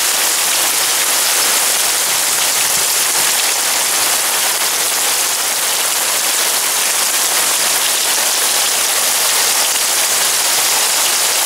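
Heavy rain pouring down on a yard and trees in a thunderstorm, a dense steady hiss with no thunder heard.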